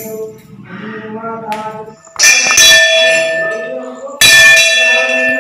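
Hanging brass temple bell struck twice, about two seconds apart. Each stroke rings loudly and fades slowly.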